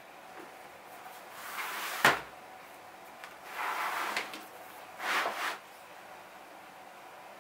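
A heavy 7–8 oz side of leather and a cutting mat being handled on a wooden table: a rustling drag that ends in a sharp slap about two seconds in, then two shorter scraping slides.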